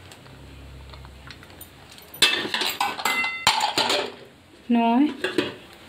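Metal utensils clattering and clinking against an aluminium pressure cooker and its lid for about two seconds, starting about two seconds in, with a few strikes ringing briefly.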